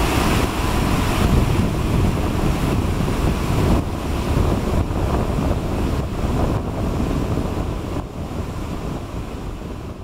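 Whitewater rapids below the Tännforsen waterfall rushing in a loud, steady roar, easing off near the end.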